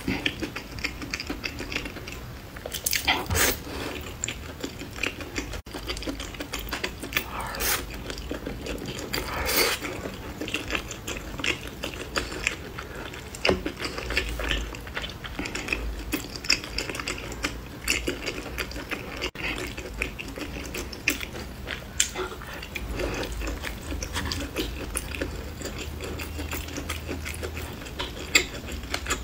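Close-up mouth sounds of a person eating soft potato chunks and a chewy noodle strip coated in chili oil: wet chewing with many small clicks and smacks, and a few longer, louder slurping sounds in the first ten seconds.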